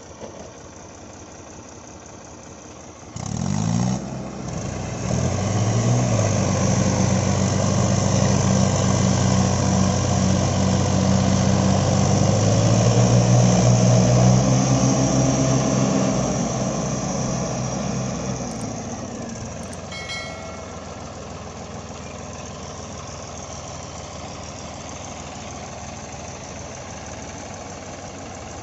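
Diesel tractor engines idling, then revving up about three seconds in and labouring hard under load for around ten seconds as a New Holland 3600-2 tows a Mahindra 555 stuck in mud. The revs then die back to a steady idle.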